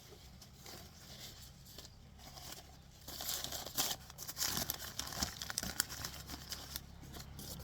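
Packaging crinkling and rustling as a shipment of succulents is unwrapped by hand, turning into louder crackling about three seconds in.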